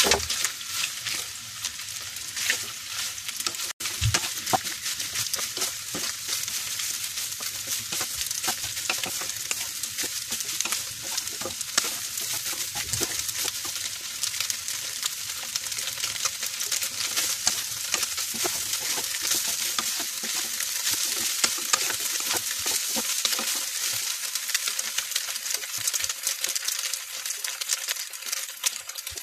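Soya chunks sizzling as they fry in a little mustard oil in a nonstick pan, a steady hiss full of small crackles, while a wooden spatula stirs and turns them.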